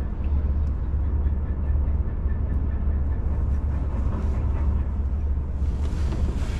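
Steady low rumble with an even hiss over it, unchanging throughout.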